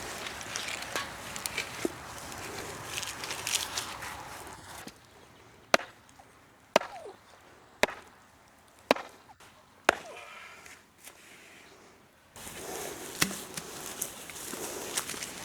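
Five sharp chopping strikes at an even pace, about one a second, in the middle of the stretch. Before and after them come clicky, rustling outdoor sounds.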